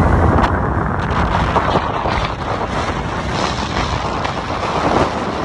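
Strong wind buffeting the phone's microphone: a loud, uneven rushing noise, heaviest in the low end.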